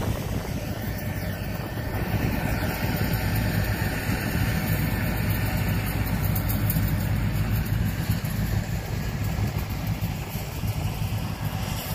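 Yanmar AW82V combine harvester's diesel engine and threshing machinery running steadily under load while cutting rice, a continuous low mechanical hum with no breaks.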